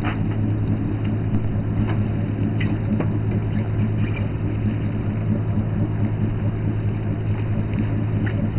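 Fishing boat's engine running steadily, a low even hum, with a few faint clicks and knocks.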